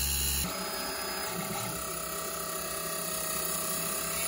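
Taig CNC mill spindle running at about 4,000 RPM with a steady whine and hiss as a high-speed steel drill bit drills holes in aluminium plate. The machine sound starts at a cut about half a second in.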